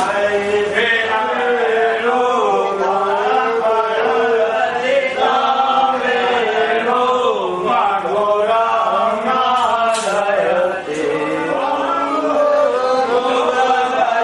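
Voices chanting Hindu mantras in a continuous, melodic recitation, the pitch rising and falling as in devotional chant.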